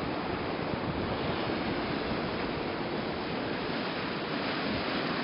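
Steady rushing of river water, an even noise with no change in it.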